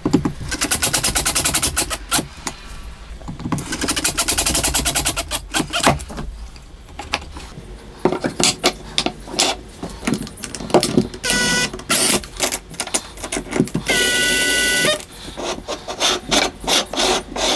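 Cordless impact driver driving screws into a hardwood frame: two long bursts of rapid hammering in the first five seconds, then two shorter runs later on with a steady motor whine, among knocks of wooden parts being set down and handled.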